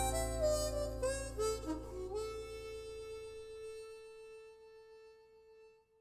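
Background music: a short falling run of notes, then one long held note that fades out.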